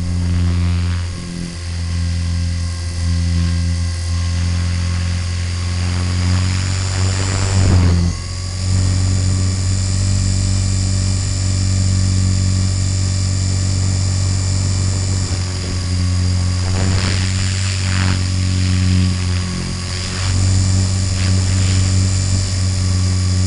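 Radio-controlled helicopter in flight, heard through its onboard camera: a steady rotor drone with a high motor whine. The pitch sweeps briefly about eight seconds in and again twice around seventeen to eighteen seconds.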